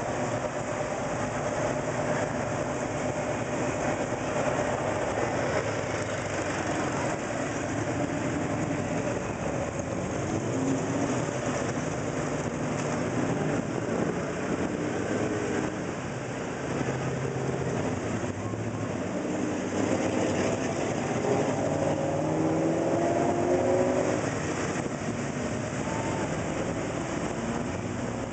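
Steady rumble of car engines in slow, stop-and-go cruise traffic, with cars moving close alongside.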